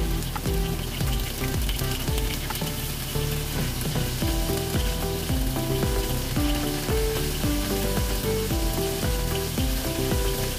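Cornstarch-coated smelt fish frying in hot oil in a wok: a steady sizzle and bubbling, with background music underneath.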